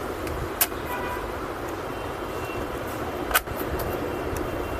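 Two sharp clicks about three seconds apart, the second louder, as plastic and metal laptop parts are handled and fitted during reassembly, over a steady background rumble and hiss.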